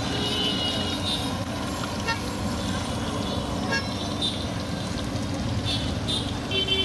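Busy street traffic with engines running and short vehicle horn toots, one in the first second and several more near the end, over a steady hiss that fits oil sizzling around frying fritters in a large wok.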